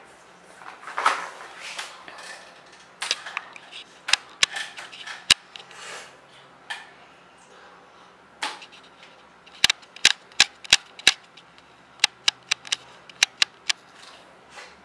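Sharp plastic clicks and clacks from toy fishing rods and plastic fish knocking, about a dozen in irregular clusters, several in quick succession near the middle and toward the end.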